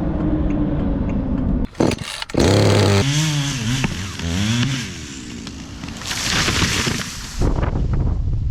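Small gasoline engine running and revving, its pitch rising and falling, in several short stretches that cut abruptly from one to the next.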